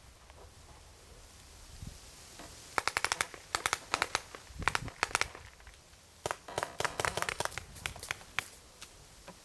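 Paintball markers firing in quick strings of sharp pops: a rapid burst about three seconds in, scattered shots around four to five seconds, and a longer volley from about six seconds to eight and a half.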